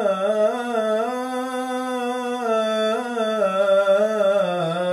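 A man's voice chanting the salâ, the Islamic call of blessing on the Prophet, unaccompanied: a single long, drawn-out melismatic note with small ornamental turns in pitch, unbroken throughout.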